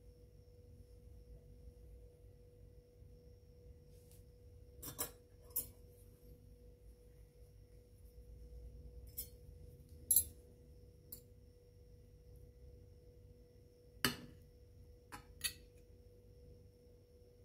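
A faint steady hum held at one pitch, with a handful of short, sharp clinks of metal cutlery against a china plate scattered through it, a few of them close together.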